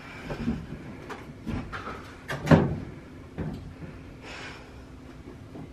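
A front-loading clothes dryer's drop-down door being opened and handled: a string of knocks and clunks, the loudest about two and a half seconds in.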